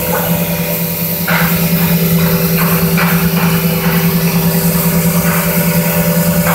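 Biesse Skill 1536 CNC router's spindle running steadily with a shaping bit cutting a curved handrail part. From about a second in, the cutting noise swells and fades in short repeated bursts as the bit works along the profile.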